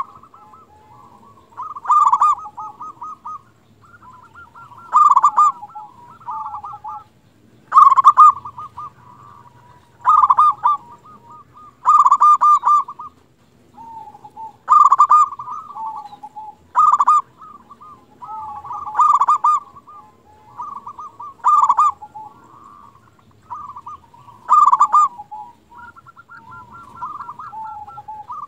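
Zebra dove (perkutut) cooing: a loud, rapid warbling coo phrase about every two to three seconds, with softer coos between.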